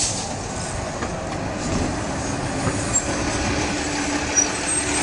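Sound Transit Express articulated bus driving past, its engine running with a steady hum.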